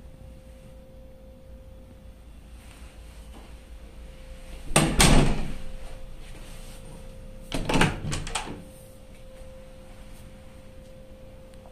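A wooden-framed frosted-glass door being handled and opened: its lever handle and latch click and the door knocks in two short bursts about three seconds apart, the first louder. A steady faint hum runs underneath.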